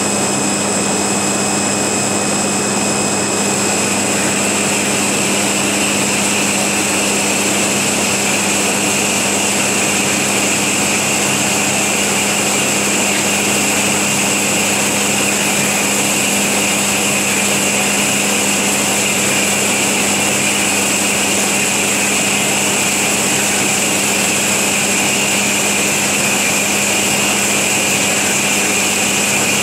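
FMB Omega hydraulic band saw running steadily, its blade cutting through solid bar stock, with a low hum under a high whine that shifts slightly a few seconds in.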